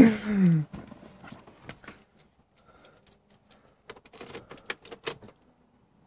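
Car keys jingling and clicking in scattered small rattles, with a denser run of sharp clicks about four seconds in, as the key is put into the ignition of a BMW E39.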